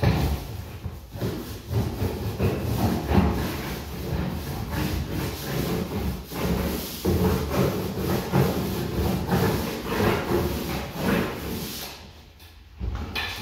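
Paint roller on an extension pole rolling wet paint up and down a wall in repeated strokes, a rough hissing rub, with a short pause near the end.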